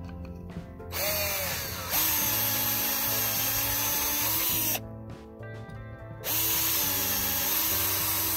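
Cordless drill running in two bursts of about four and three seconds, the first spinning up at the start. Its bit is enlarging stripped screw holes in an Atwood RV stove burner so a rivet will fit.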